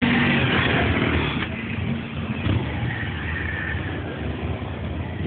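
Motorcycle engines running as a column of motorcycles rides past, led by police motorcycles; loudest in the first second and a half, then a little lower.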